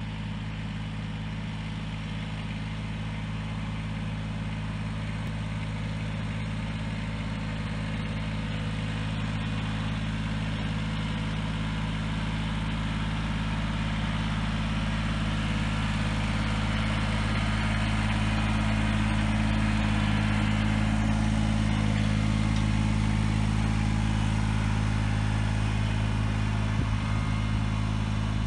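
Kubota BX23S compact tractor's three-cylinder diesel engine running steadily as the tractor drives with a log on its front loader, growing louder as it approaches and loudest about two-thirds of the way through.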